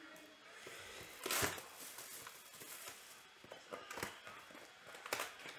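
A trading-card hobby box being unwrapped and opened by hand: a loud tearing crinkle of plastic wrap about a second in, then cardboard rustling and a few light knocks as the lid comes open.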